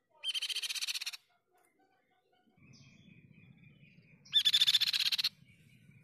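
Tepus pipi-perak (crescent-chested babbler) singing two loud, rapid trills of about a second each, the second about four seconds after the first.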